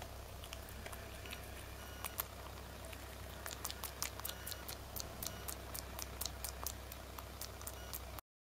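Baby monkey grooming fur, picking through it with fingers and mouth: many small sharp clicks and ticks, irregular and several a second, busiest in the middle, over a steady low hum. It cuts off suddenly near the end.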